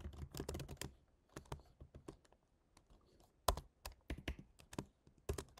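Typing on a computer keyboard: a quick run of key clicks in the first second, then scattered single keystrokes, a few of them louder.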